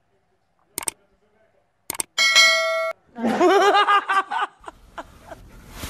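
Two short clicks, then a steady ding-like tone for under a second, followed by a short burst of human laughter, rapid and repeating.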